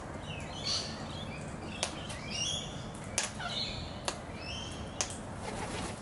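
Sulphur-crested cockatoos clicking as they work at seed with their beaks: about five sharp clicks, roughly one a second, with short soft high chirps in between.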